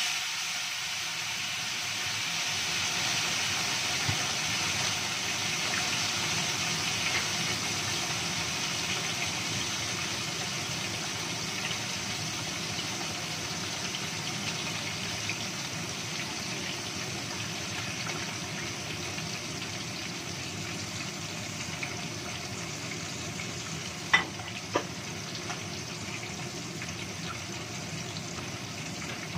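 A whole seasoned tilapia frying in hot oil in a non-stick wok: a steady sizzling hiss that slowly eases as the fish settles into the oil. Two sharp clicks close together sound late on.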